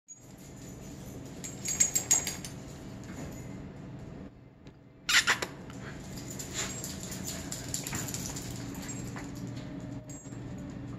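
A dog moving about on a bare concrete floor: clusters of sharp clicks about two seconds in and a louder short sharp sound about five seconds in, over a steady low hum.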